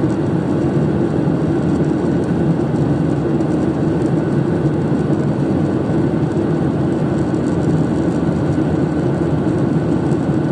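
Steady engine and airflow noise heard inside a jet airliner's cabin in flight, heaviest in the low range, with a faint steady high whine above it.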